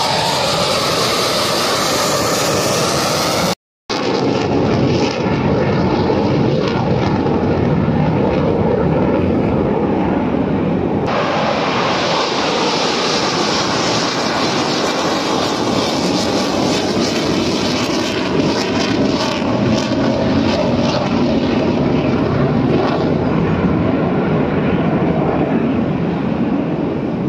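Sukhoi Su-30MKM fighter's twin turbofan jet engines running at high power through a low display pass and climb-away, a loud, steady jet noise. It breaks off completely for a moment about three and a half seconds in.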